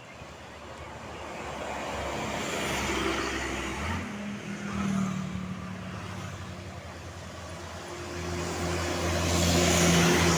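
Buses passing on the road: engine drone and tyre rush swell as one goes by about three to five seconds in, then a louder one approaches near the end.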